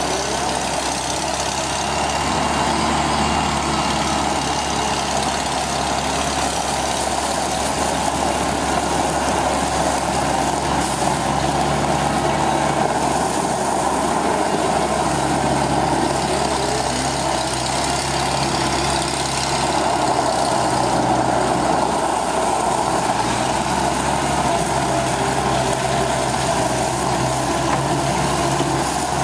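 1983 Bobcat skid-steer loader's engine running steadily while the machine drives, turns and raises its bucket. The engine note shifts slightly a couple of times.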